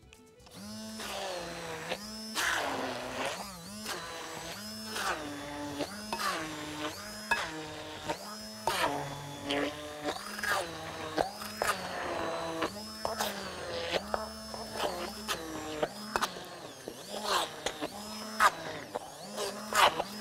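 Stick blender run in short pulses, about one a second, chopping through a thick vegetable burger mix in a glass bowl.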